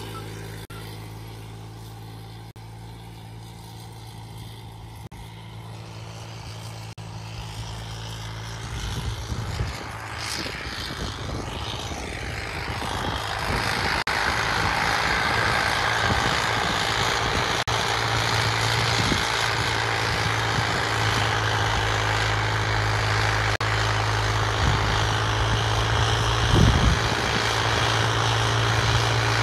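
Tractor diesel engine running while pulling a harrow. It is quieter at first, grows louder from about eight seconds in and then holds a steady, heavier note, with one brief louder knock near the end.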